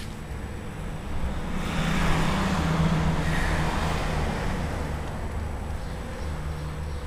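A car driving past on the street, its tyre and engine noise growing over about a second, passing, then fading away.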